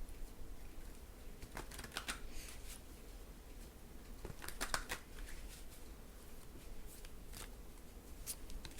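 A deck of tarot cards being shuffled by hand: a few short riffling strokes in clusters, with pauses between them.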